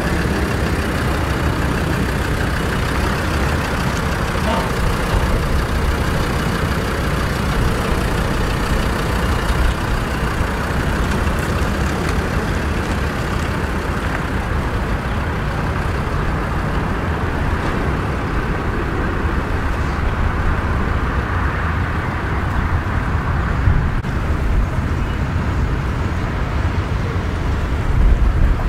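Land Rover Discovery 2 running steadily: a low engine rumble under a continuous hiss of road or wind noise, with a brief louder low thump near the end.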